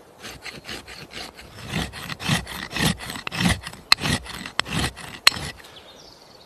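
Sharpening stone scraping along a steel axe blade in quick repeated strokes, a few per second, with a couple of sharp metallic clicks midway.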